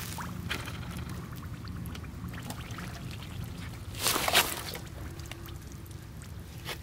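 Shallow muddy water sloshing and splashing briefly about four seconds in, over a low steady rumble and a few faint ticks.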